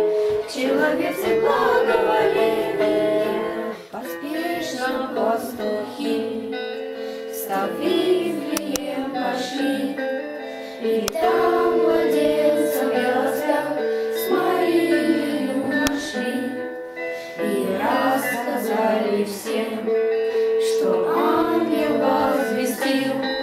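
Girls and women singing a Christmas song together as a group, a sung melody with long held notes.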